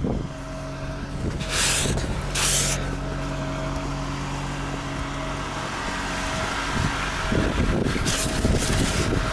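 Older Honda's cold engine idling steadily after a cold start in freezing weather. Three short scrapes cut across it, about one and a half, two and a half and eight seconds in.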